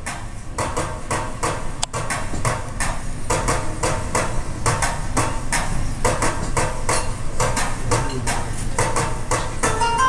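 Percussion opening a belly dance piece: a steady pattern of sharp hits, about four a second, over a low steady drone. A plucked melody joins near the end.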